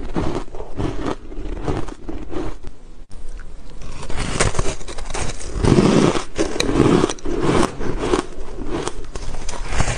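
Close-miked biting and chewing of soft, powdery ice blocks: dense, irregular crunching and scraping. It breaks off briefly about three seconds in, then resumes with fresh, heavier bites.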